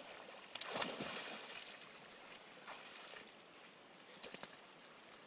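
A dog splashing as it paddles through shallow river water, in irregular bursts, the loudest about a second in and smaller ones later.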